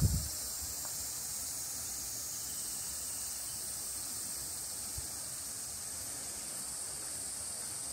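Steady, high-pitched insect chorus from the surrounding summer woodland, an even hiss that holds without change.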